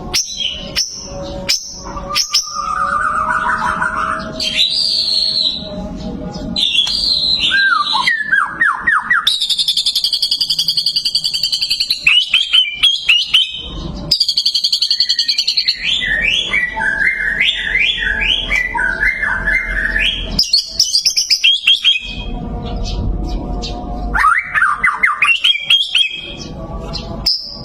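White-rumped shama singing a long, varied song of loud whistled phrases, rapid trills and chattering notes, the phrases broken by short pauses.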